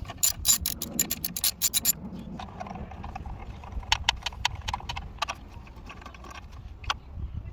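Ratchet wrench clicking as bolts on top of the engine are undone: a quick run of clicks in the first two seconds, then scattered single clicks and knocks of tool and bolts.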